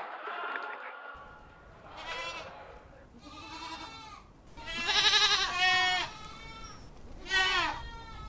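Livestock bleating: four quavering bleats one after another, the third, about five seconds in, the loudest.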